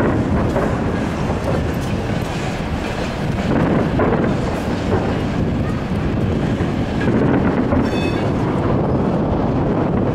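Fireworks display: aerial shells bursting one after another, blending into a continuous rumble with crackling. A brief high whistle comes near the end.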